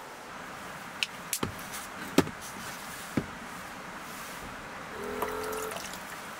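Sharp clicks and knocks as a toothpaste bottle cap and toothbrush are handled, the loudest about two seconds in. About five seconds in, a small electric water dispenser pump hums for under a second, running water out over the sink.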